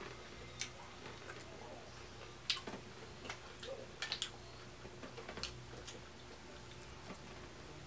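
Shell-on shrimp being peeled and eaten: irregular small clicks and crackles of shell and mouth sounds, over a faint steady hum.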